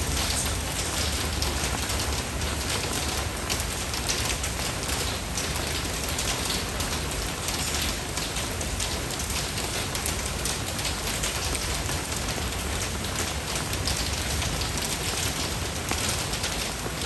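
Steady rain falling and pattering on surfaces, a continuous hiss with many small drop hits.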